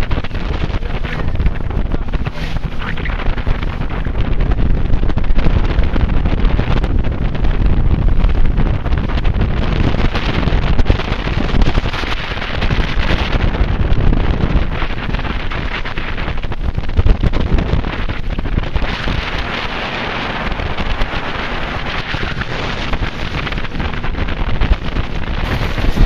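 Wind buffeting the microphone: a loud, continuous rough rushing that swells and eases.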